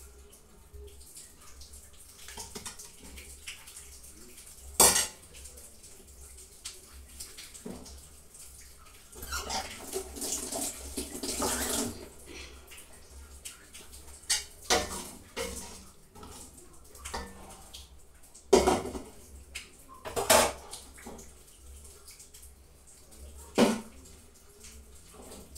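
Metal ladle clanking and scraping against a stainless steel cooking pot and plastic bowls as soup is dished out, with several sharp clanks spread through and a few seconds of liquid pouring and splashing near the middle.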